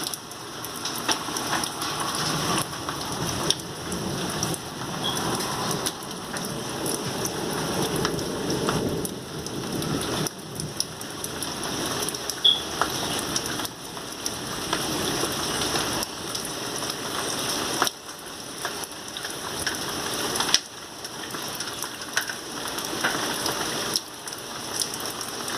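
Heavy rain pouring down: a dense hiss of rain with sharp taps of drops hitting a surface, swelling and easing in waves.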